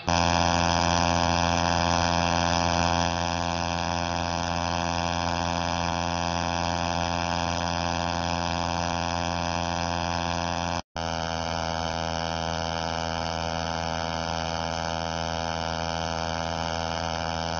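A loud, unchanging hum with many even overtones, like a machine drone, cutting out for an instant about eleven seconds in.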